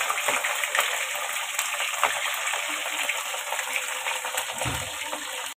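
Raw chicken pieces frying in hot oil in a steel pot: a steady sizzle full of fine crackles and spatters, the start of browning the meat.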